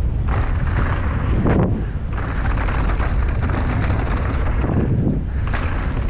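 Downhill mountain bike tyres rolling fast over a dirt and gravel trail, with heavy wind rumble on the microphone and knocks from the bike over bumps.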